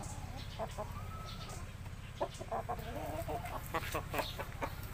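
Chickens clucking in short, repeated calls over a steady low hum.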